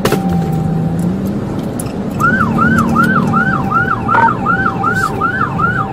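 Police car siren switching on about two seconds in, in fast yelp mode: a quick rising-and-falling whoop repeating about three times a second over the squad car's engine and road noise during a pursuit.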